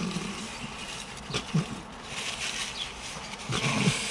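Close-up eating noises: chewing and mouth sounds on crunchy breaded chicken tenders, with a few short low grunts or hums.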